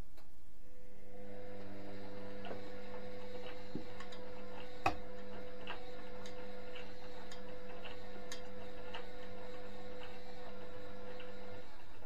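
Indesit front-loading washing machine running mid-cycle: a steady motor hum with light ticks about twice a second and one sharper click near the middle. The hum starts about a second in and stops just before the end.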